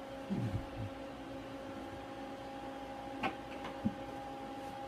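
Steady hum of an air hockey table's blower fan, with a single sharp knock a little over three seconds in.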